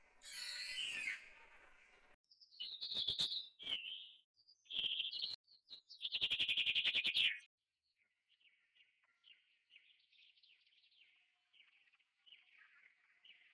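High-pitched animal calls: a loud wavering call, then several bursts of rapid trilled calls, the last one about a second long, followed by faint scattered chirping.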